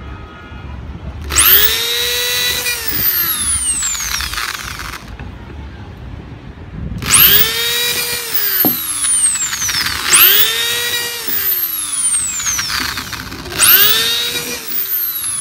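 Hitachi electric drill boring holes through the wall of a split bamboo stalk, four separate runs. Each run starts with a whine that jumps up in pitch, then slides down as the drill winds down over two to three seconds.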